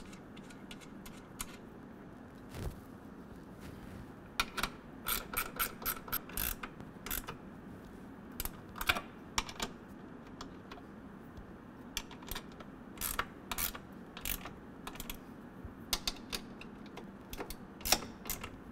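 13 mm ratcheting wrench clicking in short bursts, with pauses between, as nuts are run down onto studs to fasten a running-board linkage bracket.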